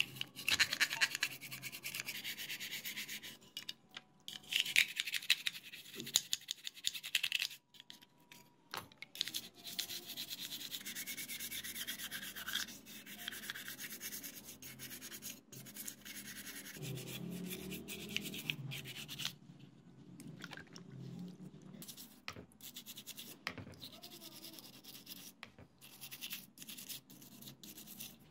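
Toothbrush bristles scrubbing small wet metal parts, in bursts of rapid back-and-forth strokes with short pauses between them.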